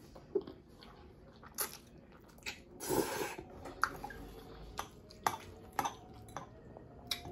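Close-up eating sounds: a person chewing and slurping spicy ramen noodles, with scattered sharp clicks of a metal fork against the bowl. A louder rush comes about three seconds in.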